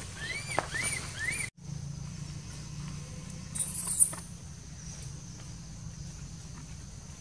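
Baby macaque crying: three short, high squeals that rise and fall, in quick succession in the first second and a half. The rest is a steady background with a brief high hiss and a click about four seconds in.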